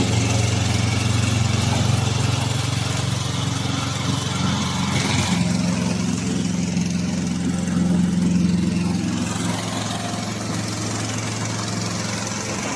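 Gasoline engine of a crawler-type remote-control slope mower running steadily; its note shifts higher about five seconds in.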